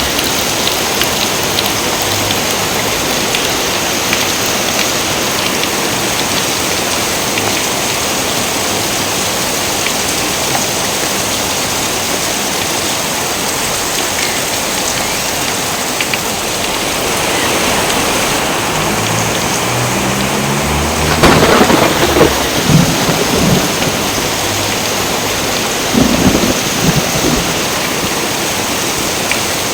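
Steady heavy rain, with a sharp crack of thunder rolling into a rumble about two-thirds of the way through, and a second rumble a few seconds later.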